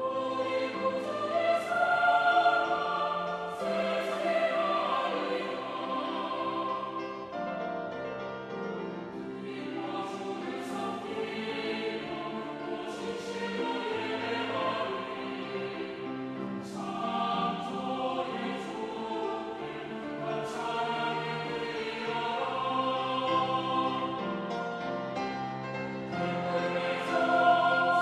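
Mixed choir singing a choral anthem in Korean, in several parts, with piano accompaniment.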